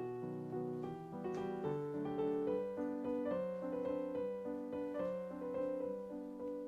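Background music: a gentle piano melody of sustained notes.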